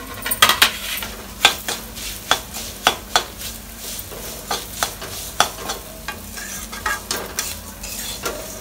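A steel spatula scraping and knocking against a metal kadai as flattened rice (chuda) is stirred and fried in hot oil, over a steady sizzle. The knocks are irregular and come thickest in the first three seconds or so, then more sparsely.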